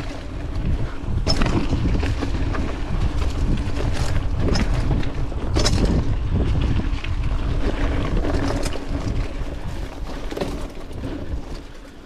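Mountain bike ridden fast down a dirt trail: wind rushing over the microphone and tyres rolling on dirt, with the bike rattling and giving several sharp knocks over bumps. The rush eases off near the end.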